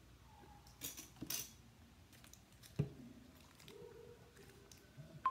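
Faint handling noises of plastic things on a table. There are two brief crinkly rustles about a second in, a single knock near the three-second mark, and a sharp click at the end as a small plastic cup is picked up.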